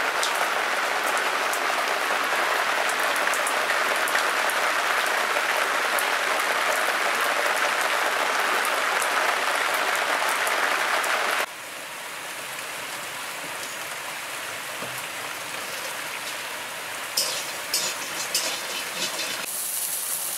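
Heavy rain pouring on a clay-tiled roof, a dense, even hiss. About eleven seconds in it cuts suddenly to softer rain with a few sharp drips. In the last second it changes to the sizzle of crabs frying in oil in a wok.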